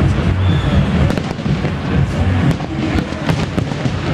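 Fireworks going off: repeated crackling from bursting shells over a continuous low rumble of booms.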